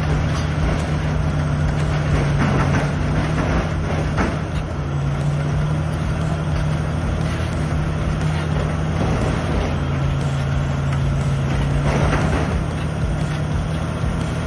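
Large bulldozer diesel engine working steadily under load, its deep drone shifting pitch slightly a couple of times, with a few brief louder noises over it.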